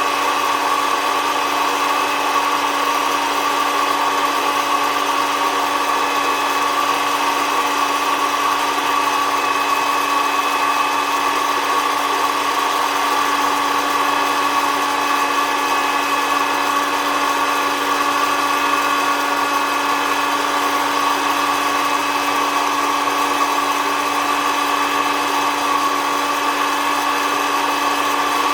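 SOUYI SY-121N electric hot-air coffee roaster running steadily, its fan motor giving an even hum and whir with a steady whine.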